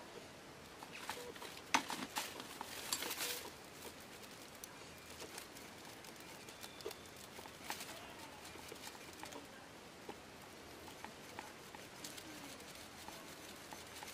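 Flat metal file on the threaded tip of a steel hex bolt: scattered light clicks and scrapes as it is set and worked, with a short stretch of rasping filing about two to three seconds in.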